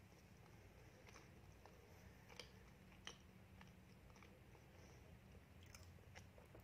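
Faint, scattered wet mouth clicks and smacks of someone chewing a soft chocolate-sprinkled donut, picked up close by a lapel microphone, over a low steady room hum.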